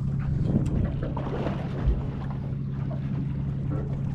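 Boat engine idling with a steady low hum, under wind on the microphone. A single dull thump about two seconds in.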